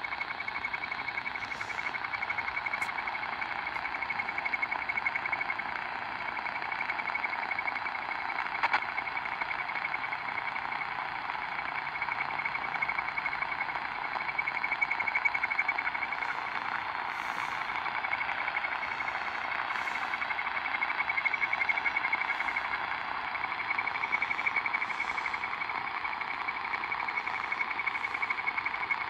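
Shortwave radio speaker playing a jamming signal laid over a numbers station on 11421 kHz AM: a steady, unbroken chirping hiss with a fluttering high tone, with no pauses.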